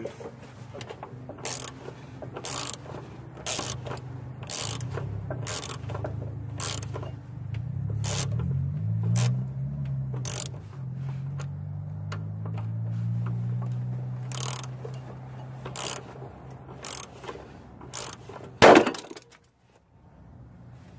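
Ratchet wrench worked in steady strokes, a sharp click about once a second, over a low hum. A loud knock comes near the end, then the sound falls away.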